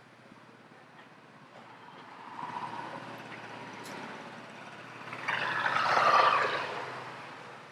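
A motor scooter passes close by on the street, its engine and tyre noise swelling to a loud peak about six seconds in, then fading.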